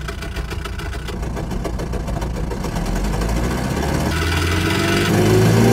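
Synthesized GMC straight-six engine sound running steadily and slowly getting louder. Its tone changes abruptly about four seconds in as the simulated microphone position is switched.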